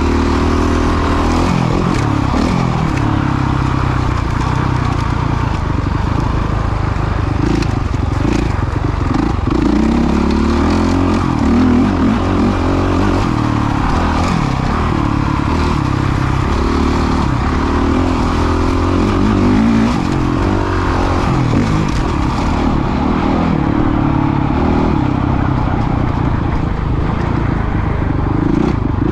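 Motocross bike engine revving up and falling back over and over as it is ridden round a dirt track, its pitch rising and dropping every few seconds with the throttle, recorded close on the rider's GoPro.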